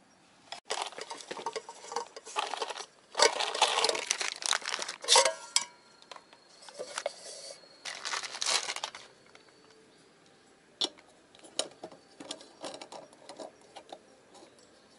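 Packaging rustled and crinkled in bursts for several seconds, then light metal clinks and knocks as camping cookware is set down and a small gas stove is screwed onto a gas canister.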